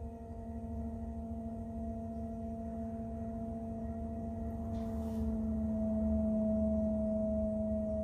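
Electric pottery wheel motor running at steady speed, giving a constant hum-like whine over a low rumble. A brief soft hiss comes about five seconds in.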